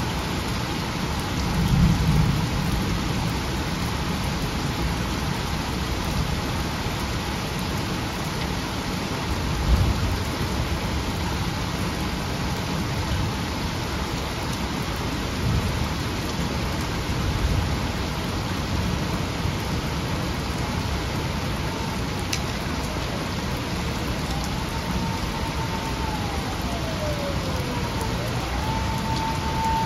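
Torrential rain pouring steadily onto a flooded road, with a couple of short low rumbles. Near the end an emergency-vehicle siren wails, rising and falling.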